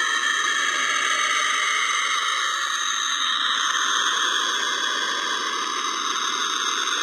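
The 'sound of Saturn' recording, space radio emissions turned into audio: a steady eerie hiss with several held high whining tones layered over it.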